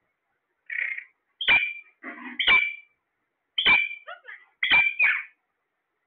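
Alexandrine parakeets giving a series of about five loud, harsh squawks, roughly one a second, with softer chattering calls in between.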